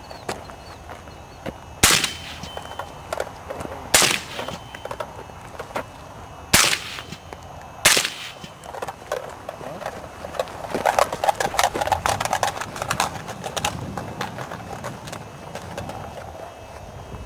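Four gunshots from a suppressed MK12 rifle (AAC SPR/M4 suppressor), spaced about two seconds apart and each with a sharp crack. After the shots comes a run of softer clicks and rattles.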